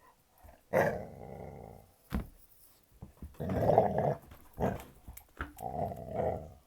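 Puppy growling in three rough bouts of about a second each, with a few short sharp sounds between them.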